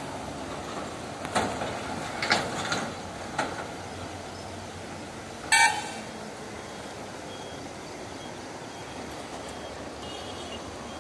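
A vehicle horn toots once, briefly, about halfway through, over a steady rushing background noise. A few short sharp knocks or splashes come in the first few seconds.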